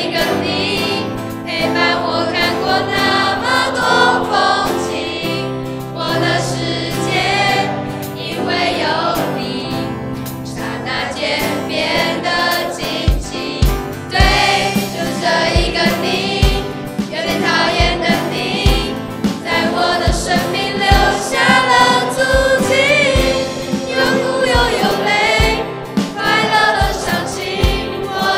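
A mixed choir of students singing a Mandarin pop-style graduation song together, with band accompaniment. A steady drum beat comes in about halfway through.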